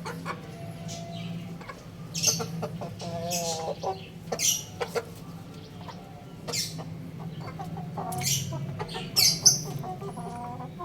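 Young roosters giving short, high chirps and clucks at irregular intervals, over a steady low hum.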